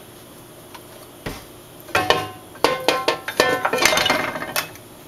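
Metal clanking and rattling with a ringing tone from a non-stick wok being shifted and tilted on the stove to spread the oil. The clanks come as an irregular run of sharp knocks, starting about two seconds in and stopping shortly before the end.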